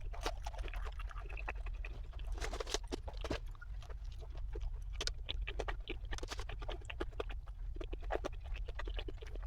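Light rain hitting a car's roof and windows from inside the cabin: scattered, irregular taps over a steady low hum.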